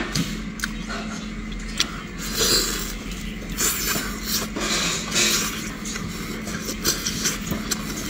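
Close-up chewing and wet mouth sounds of a man eating meat-stuffed lamb tripe, in irregular bursts with small clicks, over a steady low hum.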